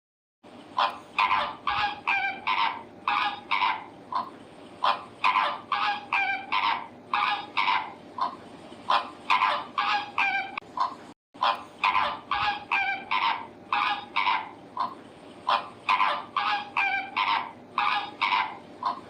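Domestic fowl calling repeatedly, short harsh squawks at about two a second over a steady low background noise, with a brief break about eleven seconds in.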